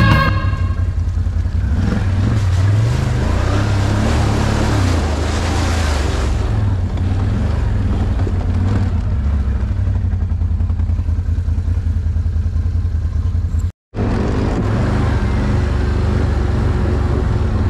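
Can-Am Outlander 1000 ATV's V-twin engine running under throttle, revving up and down. A rushing hiss sits over it for a few seconds near the start. The sound cuts out for a moment near the end, then the engine runs on steadily.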